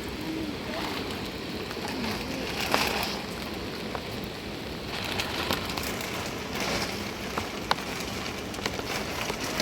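Rain falling steadily, with a few sharper drop ticks standing out.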